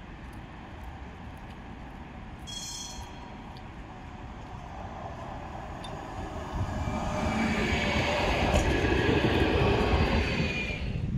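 Frankfurt street tram passing on its rails: a low rumble of wheels on track builds from about six seconds in and is loudest near the end, with thin high whining tones over it.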